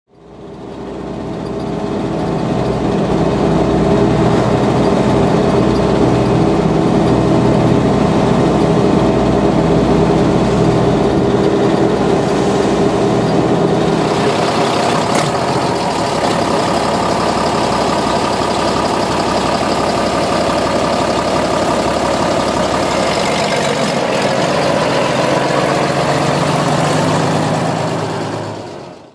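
MB-trac 1000 tractor's diesel engine running steadily, heard from inside the cab on the road. The engine note changes about halfway through, and near the end a tractor engine runs beside a raised tipping trailer of grain.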